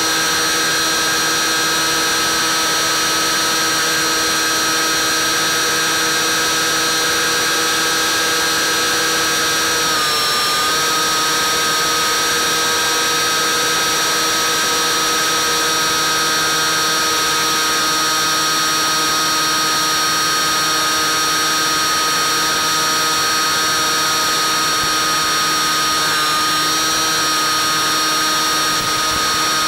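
Bixler 3 model plane's brushless electric motor and pusher propeller running at a steady high-pitched whine, with steady wind hiss. The pitch dips briefly about ten seconds in and again near the end as the throttle eases off.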